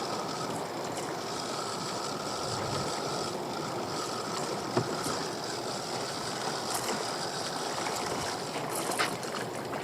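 Water lapping and sloshing around a small drifting boat, an even steady wash with no engine running. A faint steady tone sits under it for the first few seconds, and there are two sharp clicks, one near the middle and one near the end.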